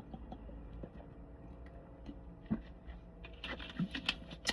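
Quiet handling noises from a soft drink and snack: scattered soft clicks and taps, then a brief cluster of sharper clicks and crackle about three and a half seconds in.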